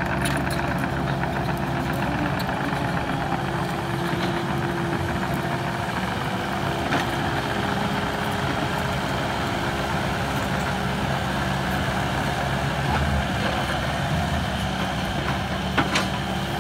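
Engine of a demolition machine running steadily at a constant speed, with a couple of faint knocks.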